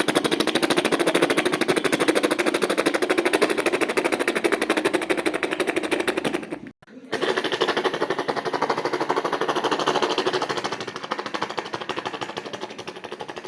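Vocal mimicry of a helicopter: a rapid, even chopping of rotor blades made with the mouth, broken by a short pause for breath about seven seconds in. It grows fainter near the end.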